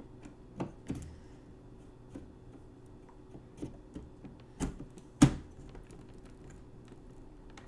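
RAM stick being handled and pressed into a motherboard memory slot: a few scattered plastic clicks and taps, the loudest about five seconds in, as the module seats and the slot's latch clicks in.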